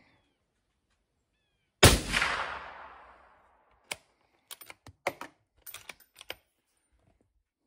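A single suppressed .308 rifle shot, loud and sudden, with its report echoing under the awning and fading over about a second and a half. About two seconds later comes a quick run of sharp metallic clicks from the rifle being worked by hand.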